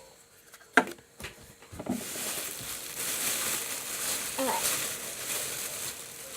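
A few light knocks, then plastic toy packaging crinkling and rustling steadily as it is handled, with a short vocal sound midway.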